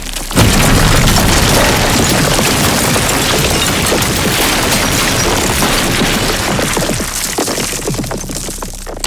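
Stones and rubble falling and tumbling in a dense rush of many small impacts. It starts with a heavy hit just after the start and thins out over the last two seconds.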